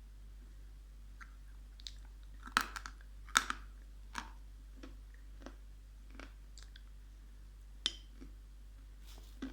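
Close-up chewing and crunching of dried edible clay, in irregular crisp crunches. The loudest two come about two and a half and three and a half seconds in.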